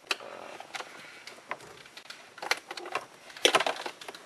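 Hands working a GPS antenna cable and plastic trim inside an open car dashboard: irregular clicks, taps and rustling, with a louder cluster of clicks about three and a half seconds in.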